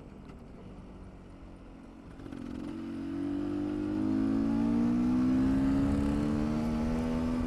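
Two-stroke dirt bike engine, a GasGas EC300, running low for about two seconds, then pulling harder with its note slowly rising in pitch and growing louder, before dropping off right at the end.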